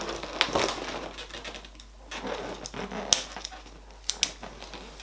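Latex modelling balloons being handled, rubbing and squeaking against each other, with a few sharp clicks and taps as plastic googly eyes are pressed onto the balloon head.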